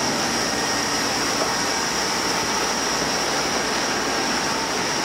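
Steady rushing hiss of running water and aeration in live-seafood holding tanks, with a constant high-pitched whine above it.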